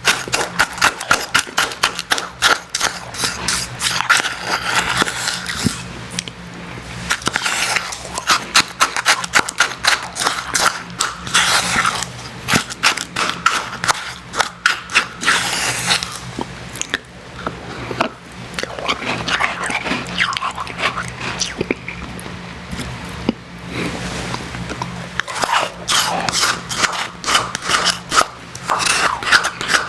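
Close-miked crunching and chewing of frozen Icee slush: dense, crisp crunches in quick runs with short lulls, over a steady low hum.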